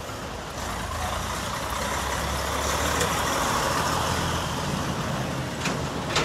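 Toyota Land Cruiser's V8 petrol engine running as the SUV creeps out of a shipping container; the engine and rolling noise swell over the first few seconds and ease slightly, with a couple of short knocks near the end.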